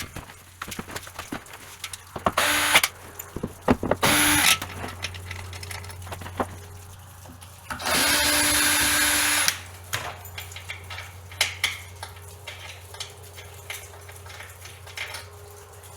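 Power drill run in three short bursts, the last one longest, as screws are driven out of a plywood deck, with clicks and knocks of handling between the runs.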